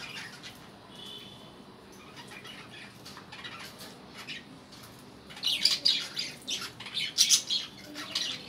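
A cage of small pet parrots, called lovebirds, chirping and squawking. The calls are sparse and soft at first, then become a fast, loud chattering about five seconds in.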